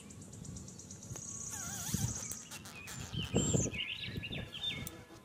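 Small birds chirping, with a fast high trill in the first two seconds and quick rising and falling calls near the end. Under them is low rustling and handling noise from hands and scissors working among the leaves of a chili pepper plant, loudest about three and a half seconds in.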